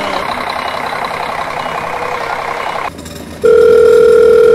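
Engine sound effect of a heavy vehicle running, which stops abruptly about three seconds in. Half a second later a loud, steady telephone tone starts and holds.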